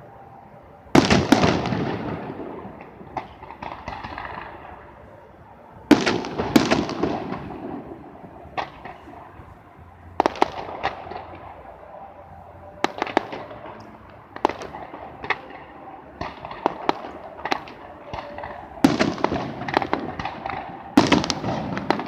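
Aerial fireworks bursting: a series of sharp booms, each fading away over a second or two, with smaller pops and crackles between them and a quicker run of bursts near the end.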